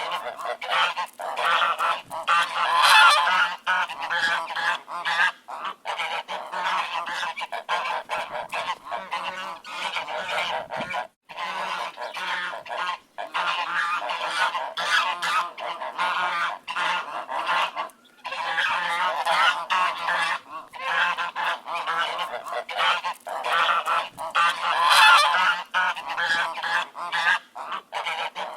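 A flock of ducks quacking constantly, many birds calling over one another. The calling cuts out for a moment about eleven seconds in.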